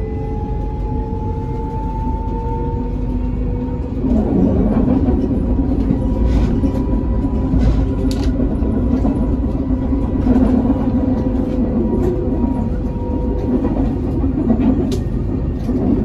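Alstom Citadis 302 tram in motion, heard from the driver's cab: the electric traction drive's whine rises in pitch as the tram accelerates, then levels off. About four seconds in, a louder wheel-on-rail rumble joins it, with occasional sharp clicks.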